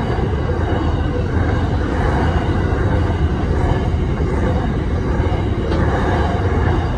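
Container wagons of a long freight train rolling through a level crossing: a steady, loud rumble of wheels on the rails.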